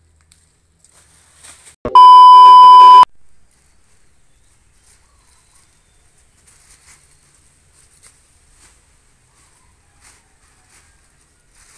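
A loud, steady electronic beep lasting about a second, starting about two seconds in, with the look of a bleep added in editing. Around it there are only faint scattered rustles.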